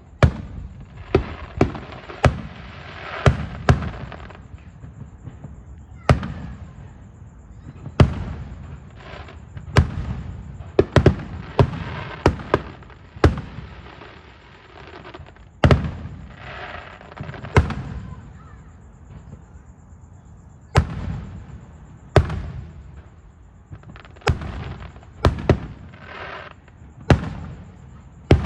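Fireworks going off: a run of sharp bangs at irregular intervals, roughly one to three every couple of seconds, some trailing off in a crackling, echoing tail.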